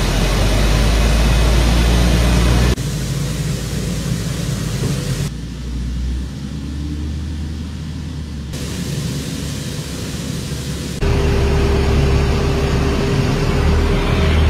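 Low engine rumble of armoured military vehicles driving into a transport aircraft's cargo hold, over a steady noise. The sound changes abruptly several times where separate clips are spliced together, and a steady whine comes in about three seconds before the end.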